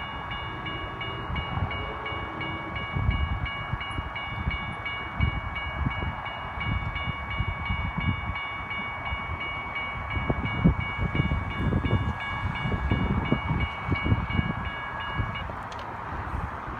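Locomotive air horn held as one long, steady chord that cuts off about fifteen seconds in, over wind buffeting the microphone.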